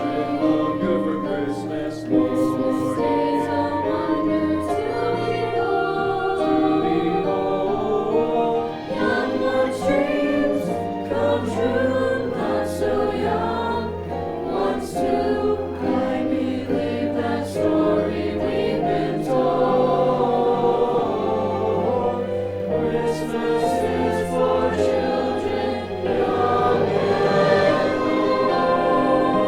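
High school choir singing a piece in several-part harmony.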